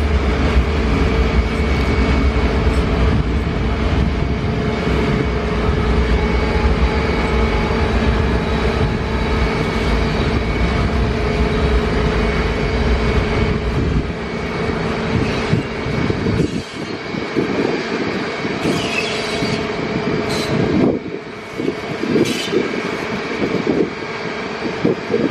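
A very long train rolling through the station: a heavy, steady rumble of wheels on rail with steady high-pitched tones ringing over it. About two-thirds of the way through the deep rumble drops away, leaving lighter rattling and clicking of the passing wagons.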